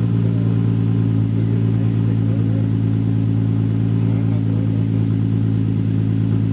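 Car engine idling steadily, its exhaust running through a newly installed ISR Y-pipe.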